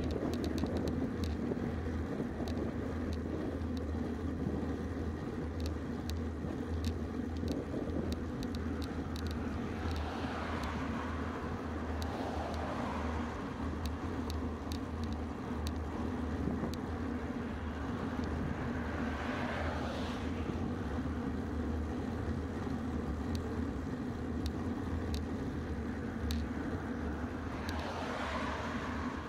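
Steady wind and road rumble from a moving road bicycle, with several oncoming cars passing in the other lane. Each pass swells up and fades: about a third of the way in, around two-thirds in, and again near the end.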